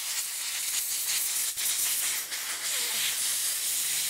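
Compressed-air blow gun giving a loud, steady hiss, blowing excess oil out of the bayonet grips, with a couple of momentary breaks in the blast.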